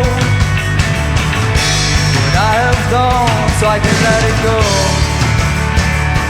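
Rock band playing live, with a drum kit and a steady low end under a melodic lead line that slides and bends in pitch.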